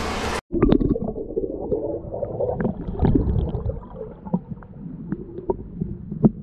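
Water moving past an underwater camera: a muffled low rumbling and gurgling with scattered sharp clicks. It opens with a half second of steady hiss that cuts off abruptly.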